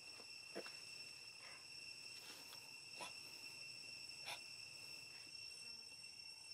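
Faint, steady, high-pitched drone of insects in the forest, with a few soft clicks about half a second, three and four seconds in.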